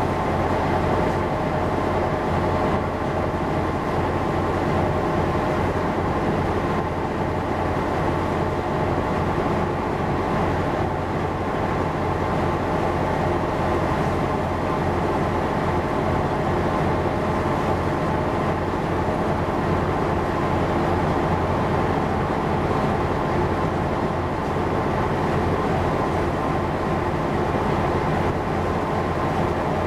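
Ship's engine droning steadily, a deep hum with several constant tones over it and a rushing noise.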